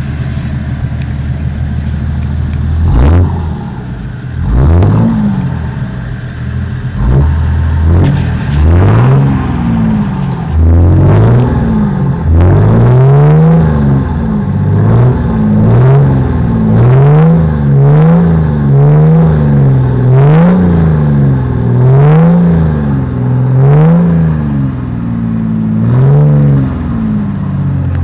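Six-cylinder diesel car engine idling, then free-revved in short blips, a few at first and then in quick succession about once a second, each rising and falling in pitch. It settles back to idle near the end.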